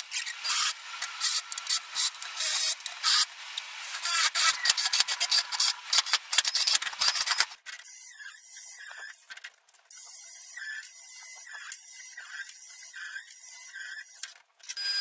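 Cordless drill boring into pine with a spade bit, a dense, crackly noise full of rapid clicks as the bit chews through the wood. About halfway through it changes suddenly to a quieter sound: an angle grinder cutting steel rod, with a steady high tone running through it.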